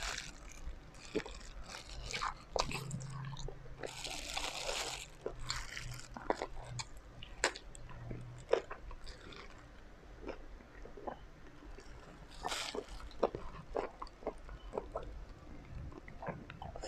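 Close-up mouth sounds of a person eating steamed chicken by hand: wet chewing and lip smacks, with two short sucking bursts, about four seconds in and again near twelve seconds.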